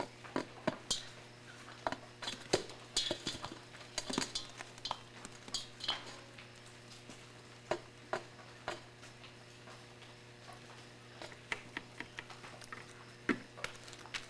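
Ostrich chicks pecking at a shallow metal bowl, their beaks tapping and clinking against it irregularly as they pick out pill bugs. The taps come in quick flurries, with a lull in the middle.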